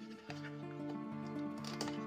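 Background music with held notes that change pitch in steps, with a few light clicks of a cardboard box being handled near the end.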